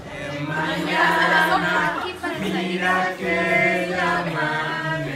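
A group of people singing together without instruments, in long held notes with short breaks between phrases.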